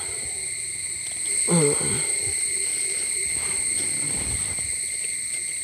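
Insects, crickets, chirring steadily in high continuous tones, with a brief voice about one and a half seconds in.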